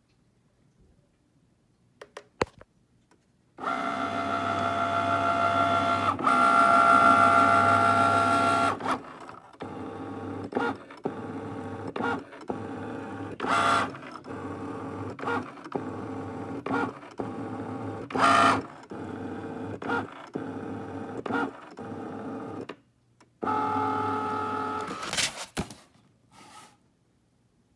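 Cricut Maker cutting machine's motors moving the mat and carriage: a few clicks, a long steady whirring run, then a quick series of short stop-start moves at about one a second while the sensor scans for the printed registration marks, then another steady run. This is the Print Then Cut failure, in which the machine cannot read the sensor marks.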